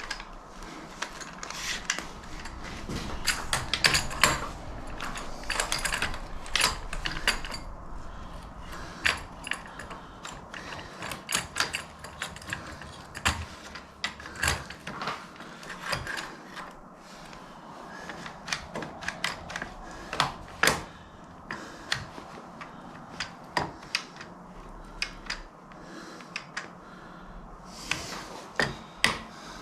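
Irregular metallic clicks, clinks and knocks of hands working a hydraulic quick-connect coupler and its clamp.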